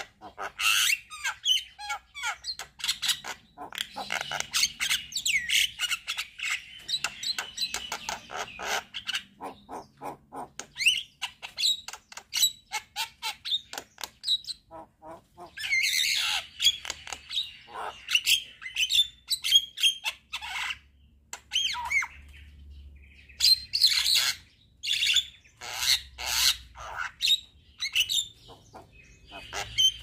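Javan myna singing: a loud, busy song of harsh squawks, whistles and rapid clicking chatter in bursts with short pauses, full of mimicked phrases.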